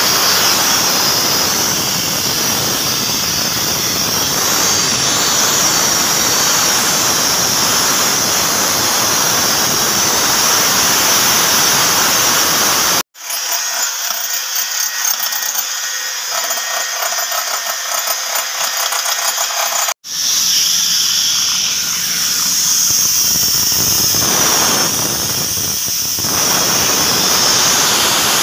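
Steady, loud hiss of compressed air blowing from a hose fed by a PG 450-150 portable air compressor, with the compressor running underneath. About 13 seconds in it cuts abruptly to a thinner, high-pitched sound with several steady tones and no low rumble, and about 20 seconds in the hiss returns just as abruptly.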